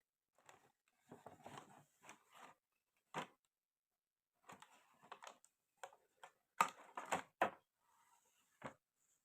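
Small plastic toy kitchen pieces being handled, with irregular clicks and taps and brief rustling in between. A cluster of sharper clicks comes just past halfway, and a single one near the end.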